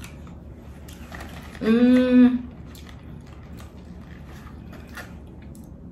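A woman's short closed-mouth "mmm" hum at one steady pitch while she tastes a pretzel stick. After it come faint crackles and rustling as a cardboard snack box is handled.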